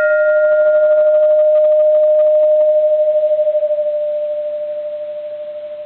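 Bronze Japanese Buddhist temple bell ringing on after a strike: one steady, pure hum with a slow regular waver, its higher overtones dying out in the first second or two while the hum slowly fades.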